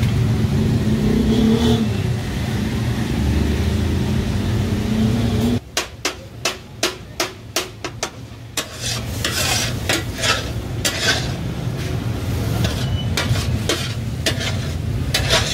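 Meat and tomato gravy sizzling on a large flat griddle over a steady low rumble. About five and a half seconds in, metal scrapers start striking the griddle in a quick, even rhythm of about three clanks a second. The clanking then turns irregular, mixed with scraping and sizzling: the taka-tak chopping that gives the dish its name.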